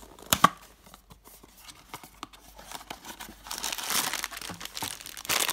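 Cardboard Funko Mystery Minis blind box flap pulled open with a sharp snap, then, from about three and a half seconds in, dense crinkling as the black foil bag inside is pulled out and handled.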